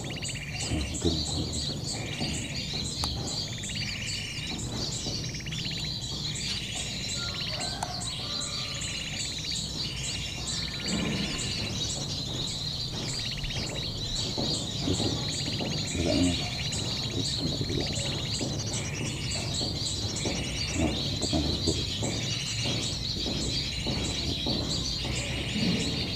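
Sooty-headed bulbul calls played from an MP3 bird-call lure, short chirping phrases repeating at an even, looped pace of about one a second, with high ticking notes over them.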